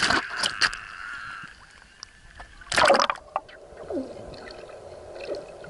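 Pool water splashing around swimmers at the surface, with a bigger splash about three seconds in. After that the sound turns muffled and bubbly, heard from under the water.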